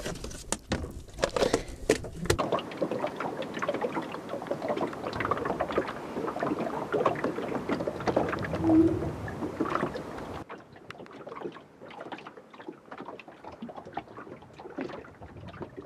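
A few sharp clicks and knocks of a plastic tub being handled, then water lapping and slapping against a small wooden boat's hull, quieter after about ten seconds.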